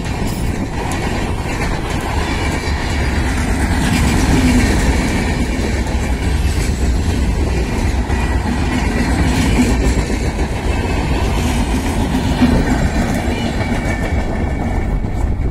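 Indian Railways LHB passenger coaches passing at speed: a steady, loud rumble and clatter of wheels on the rails.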